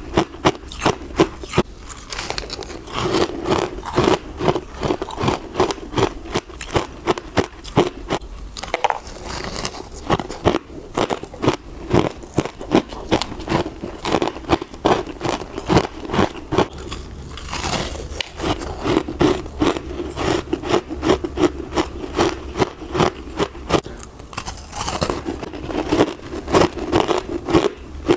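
Close-miked chewing of hard frozen passion fruit ice mixed with dry, crispy freezer frost: a rapid run of sharp crunches, several a second, with the grinding of ice between the teeth.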